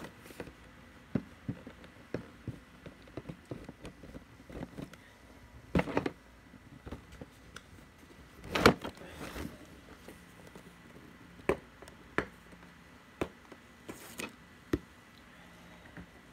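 Scattered light clicks and knocks with some soft rustling, with a louder thump and rustle about nine seconds in.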